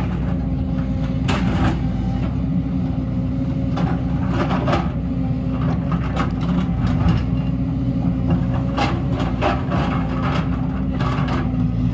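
JCB tracked excavator's diesel engine running steadily under digging load, with scrapes and knocks of the bucket tearing into rocky soil and stones about 1, 4.5, 9 and 11 seconds in.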